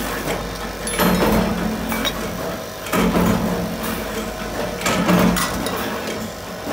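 Electric motor spinning a buffing wheel as a steel ladle bowl is pressed against it to polish it: a steady hum with a rasping swell about every two seconds, three times, as the ladle bears on the wheel.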